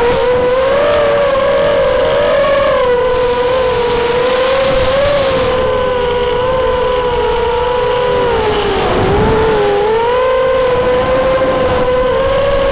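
ZMR250 racing quadcopter's brushless motors and propellers whining, heard close through the quad's own onboard camera. The high whine wavers with the throttle, sagging in pitch about nine seconds in and climbing back.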